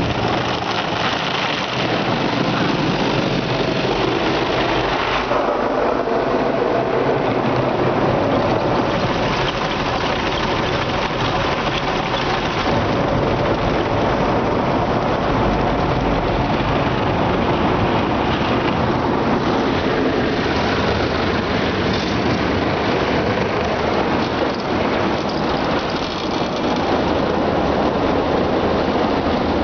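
Rotating brushes of an automatic car wash scrubbing against the car's windows and body, with water running on the glass, heard from inside the car as a steady rushing, swishing noise.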